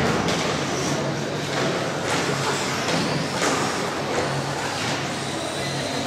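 Electric 1:10 RC short-course trucks racing, their motors giving a high whine that rises in pitch as they accelerate, over steady tyre and drivetrain noise.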